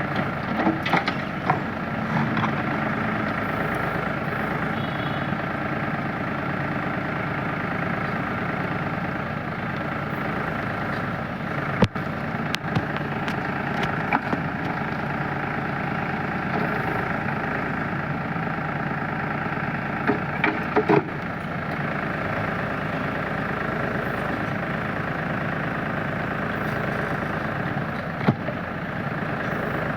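Tractor-mounted backhoe loader's engine running steadily. A few sharp knocks sound through it, twice close together near the middle and once near the end.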